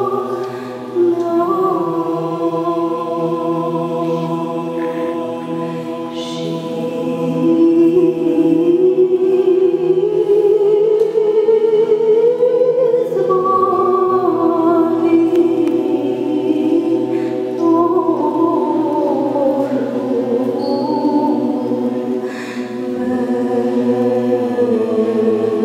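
A woman singing a slow Romanian devotional hymn into a microphone, in long held notes that glide slowly up and down over a steady low drone, with other voices joining in as a choir.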